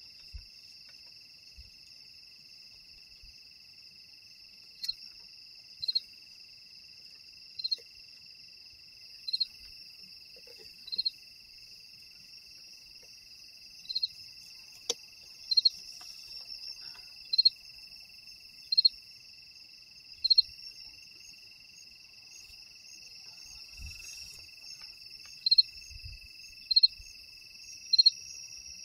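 Night insects trilling steadily in two high unbroken tones, with short high chirps from a closer cricket every second or two standing out as the loudest sound. A single faint click comes about halfway through.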